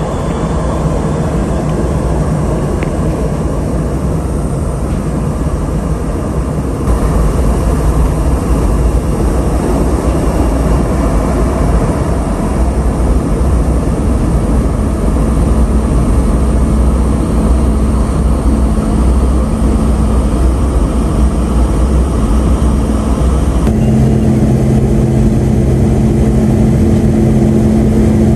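KC-135 Stratotanker's jet engines running, a loud steady rumble with a few constant hum tones. The sound changes abruptly about seven seconds in and again near the end, where the hum tones grow stronger.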